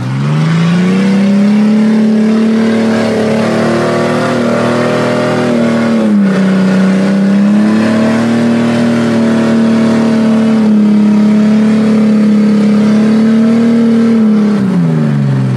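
Off-road 4x4's engine held at high revs under load. The note sags briefly about six seconds in, climbs back, then drops away near the end.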